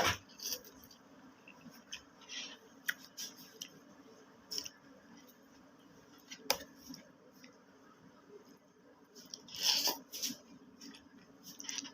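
Person eating spicy noodles: scattered sharp clicks and short noisy eating sounds, the loudest at the very start and around ten seconds in.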